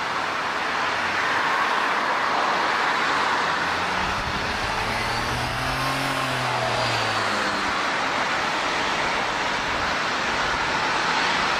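Jet airliner engines making a steady, loud roar, with a low humming tone that rises and then falls in pitch near the middle.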